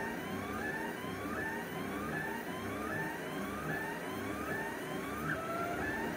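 XYZprinting da Vinci 1.0 Pro 3D printer running a print: its stepper motors whine in short rising sweeps, about two a second, as the print head moves back and forth, over a low steady hum.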